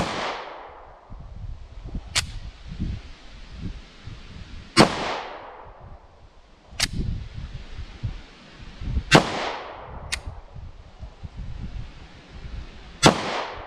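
Taurus G2C .40 S&W compact pistol firing seven single shots a second or two apart, the loudest trailed by a long echo. The pistol cycles each round without jamming after its factory repair.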